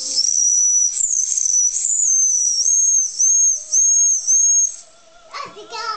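The brass boiler's steam whistle on a vintage Wilesco toy steam engine, blown by hand now that the boiler has steam up. One long, shrill whistle wobbles in pitch, then breaks into a few short toots and stops about five seconds in.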